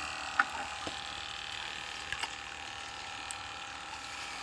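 Steady running water and the hum of a pond pump, with a few faint clicks about half a second and two seconds in.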